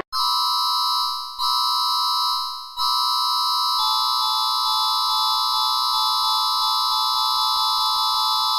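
Electronic emergency alarm tone: a steady chord of several pitches with no rise or fall. It sounds twice briefly, each time fading before the next start, then holds unbroken.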